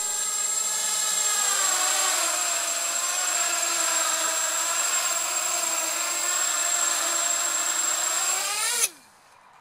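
DYS 250 racing quadcopter's brushless motors and propellers spinning with the craft still on the ground, a steady buzzing whine whose pitch wavers. It rises briefly and then cuts off about nine seconds in. The quad will not take off, which the owner thinks could be a faulty front-right motor (no. 2).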